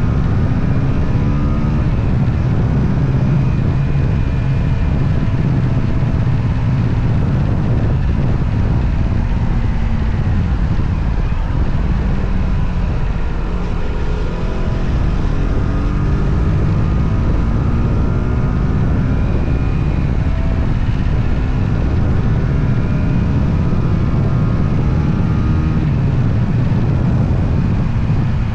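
Motorcycle engine heard from the rider's position while riding, its pitch rising and falling again and again as it accelerates and slows, over steady wind and road noise.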